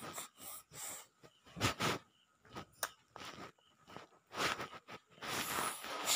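Irregular short breathy puffs and snuffles close to the microphone, with a longer stretch of breathy noise near the end.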